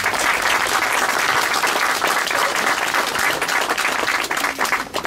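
Crowd applauding, many hands clapping together; it eases off near the end.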